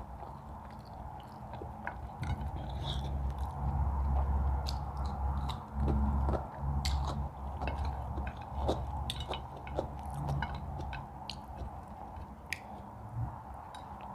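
Close-up chewing and biting of food, with many small mouth clicks and a low dull rumble through the middle.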